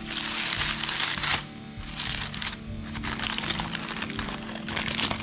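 Parchment paper crinkling and rustling in bursts as a baked parchment packet is untwisted and torn open, over steady background music.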